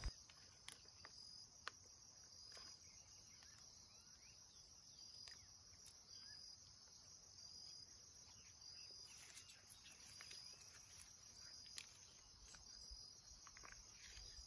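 Near silence with faint insects: a steady high chirring and a short chirp repeating about once a second, with a few faint ticks.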